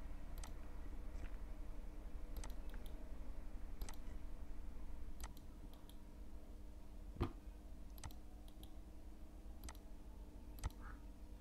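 Computer mouse clicking: single sharp clicks every second or two, the loudest about seven seconds in, over a faint steady background hum.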